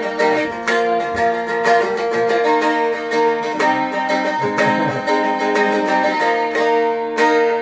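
Seagull Merlin M4 with a spruce top, a four-string diatonic fretted instrument, strummed in chords with a punchy, banjo-like tone. The chord changes several times.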